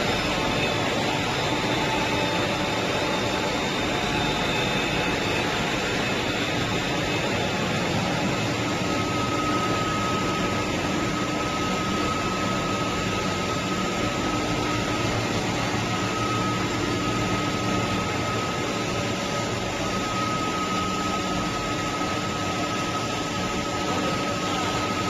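PET strap extrusion production line running: a steady machine noise with a faint high whine that comes in about a third of the way through.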